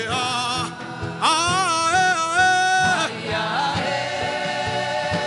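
Gospel worship music: a voice holding long sung notes with vibrato over a sustained keyboard backing and a steady beat.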